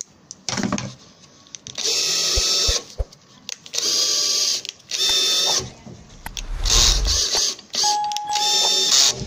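Cordless drill-driver driving screws into the edge of a composite panel, running in about five short bursts of motor whine with pauses between them.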